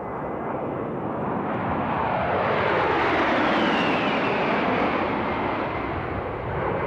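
Formation of four Fairchild Republic A-10 Thunderbolt II jets flying past overhead, their TF34 turbofan engines building to a peak about halfway through. A high whine drops in pitch as they pass.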